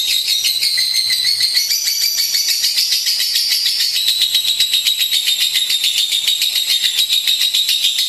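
Lovebird singing a long, unbroken chattering song of rapid, high-pitched notes, its pitch rising for a couple of seconds before settling back.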